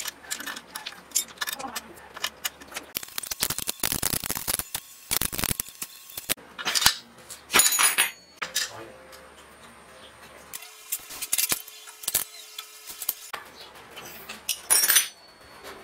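Brass fittings and copper tubing clinking and clattering as they are handled and screwed together, a string of sharp metallic clicks, some with a short ring.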